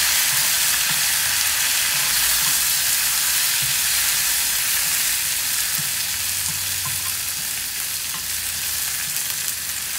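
Freshly washed curry leaves frying in hot coconut oil with dried red chillies and dal, sizzling steadily while a spoon stirs them around a nonstick pan with faint knocks. The sizzle eases slightly toward the end.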